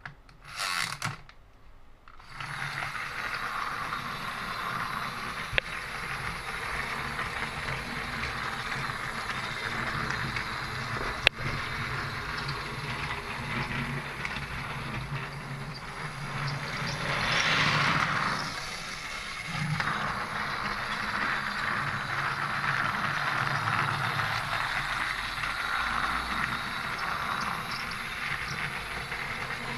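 Small electric motor and gears of a battery-powered Plarail Duck locomotive running steadily as it pushes a string of wooden toy engines along plastic Plarail track, starting about two seconds in after a click of the switch. The whirr swells briefly partway through.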